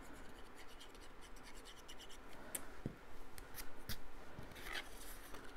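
Faint paper-handling noises: cardstock scratching and rubbing as a glue bottle's nib is run along a paper strip, with a few sharp clicks and taps in the second half.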